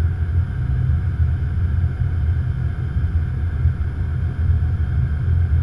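Steady low rumble of airflow and engines inside an Airbus A330-200 cockpit on short final approach.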